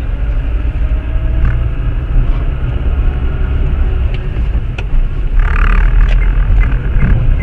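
Steady low rumble of a car's engine and road noise heard from inside the cabin through a dash camera's microphone, with a short burst of noise about five and a half seconds in.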